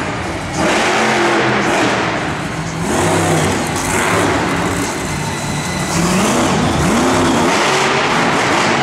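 Monster truck's supercharged V8 engine revving hard, its pitch rising and falling again and again as the truck drives and jumps.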